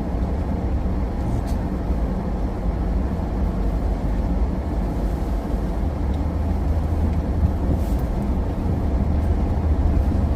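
Pickup truck in four-wheel drive rolling slowly over snow-covered, icy road, heard from inside the cab: a steady low engine and road rumble.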